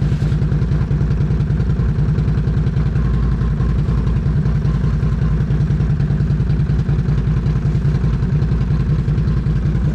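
Can-Am Outlander XMR 1000's V-twin engine idling steadily.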